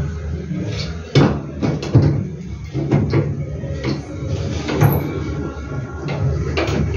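Irregular knocks and clunks of a hand tool against wooden boards, about half a dozen over several seconds, over a low steady hum.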